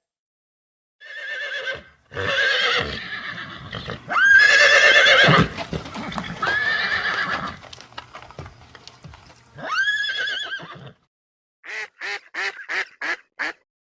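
A horse neighing several times, in long, shaky whinnies that waver in pitch. Near the end comes a quick run of about six short duck quacks.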